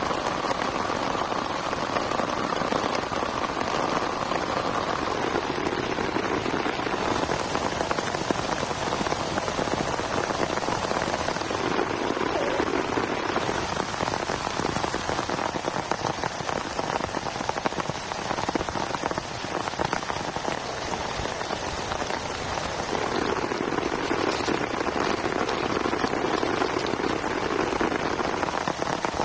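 Heavy rain falling steadily, a dense patter of raindrops on surfaces.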